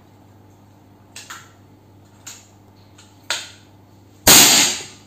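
A few sharp mechanical clicks as a Predator PCP air rifle is handled, then a single loud air-rifle shot a little over four seconds in. The shot goes off unexpectedly: the match trigger is very sensitive.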